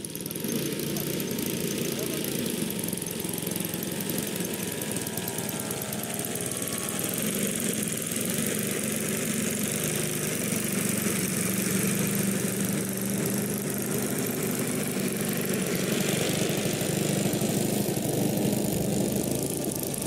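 Small 38cc NGH gasoline engine of a radio-control model plane running steadily at low throttle as the plane taxis, propeller turning. The owner describes the engine as running a little rough.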